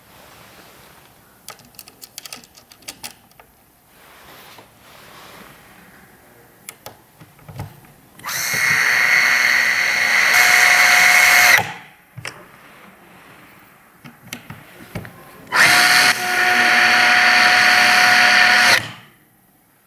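Small electric screwdriver motor running in two bursts of about three seconds each, a steady whine at one pitch, with scattered small clicks between them.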